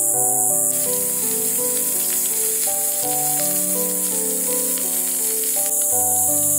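Background music of slow melodic notes, over which salmon sizzles in a small cooker pan on a charcoal fire from about a second in until near the end.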